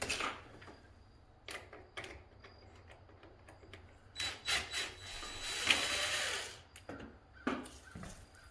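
Hand work on sash window hardware while the old spiral balances are being removed: scattered clicks and knocks, with a rubbing noise lasting about two seconds in the middle.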